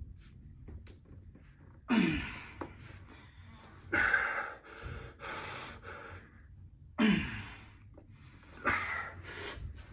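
Heavy, forceful breaths and strained exhalations from arm wrestlers straining mid-match, about four loud bursts a few seconds apart with quieter breathing between.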